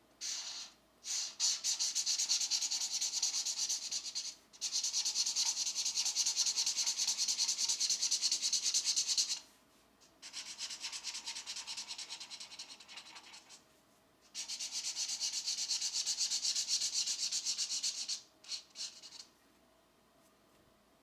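Colored pencil shading on a coloring book page: rapid back-and-forth scratchy strokes in five stretches with short pauses between, then a couple of brief strokes before it stops near the end.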